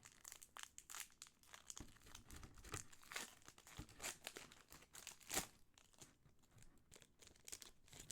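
Foil wrapper of a Pokémon booster pack crinkling and tearing as it is opened, in a string of irregular crackles; the loudest about five seconds in.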